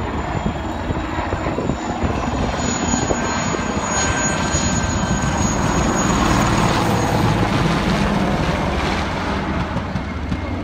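IAR 330 Puma twin-turbine military helicopter flying low overhead, its rotor and engines a steady loud roar. It grows louder toward the middle as it passes close by, then eases off near the end.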